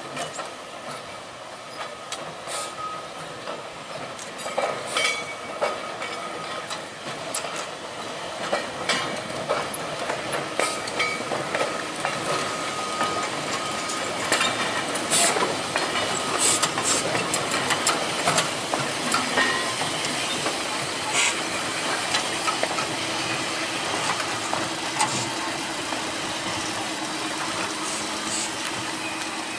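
Manx Electric Railway electric tram and open crossbench trailer rolling slowly past, wheels clicking and knocking irregularly over rail joints and points. It grows louder as the cars draw near, with a faint steady hum in the last few seconds.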